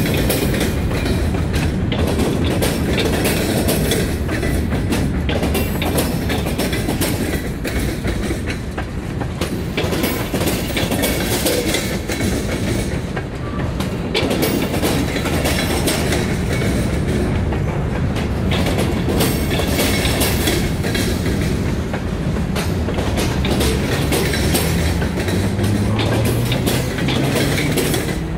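Freight cars rolling past, their steel wheels clattering steadily over the rail joints.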